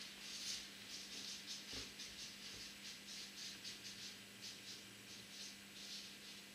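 Felt-tip marker writing on flip chart paper: a quick, irregular run of short, scratchy strokes as letters are written.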